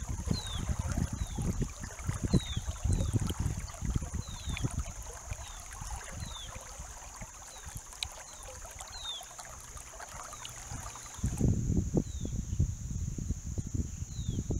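Shallow river water lapping and rippling over a pebble bed, with gusts of wind rumbling on the microphone, a steady high insect buzz, and a bird repeating short falling chirps. About three-quarters of the way through, the chirps stop and the wind gusts grow louder.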